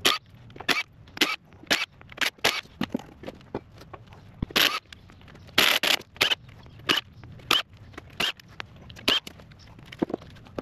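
Ryobi cordless impact driver run in short, repeated bursts on the bolts of a compact track loader's bogie-wheel assembly, backing them off. The bursts come roughly every half second to second, with a couple of longer runs midway.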